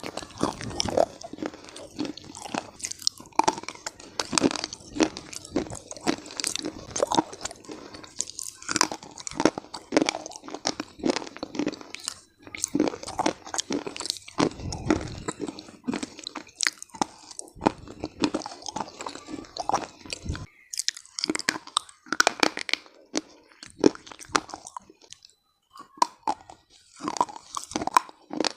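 Close-up biting and chewing of dry, crunchy chalky clay, a dense run of irregular sharp crunches that briefly stops a little past twenty seconds, then thins out for a few seconds before picking up again.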